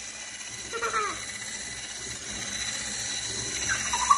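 Electric hand mixer running steadily with a high motor whine, its wire whisk beaters churning cake batter in a glass bowl.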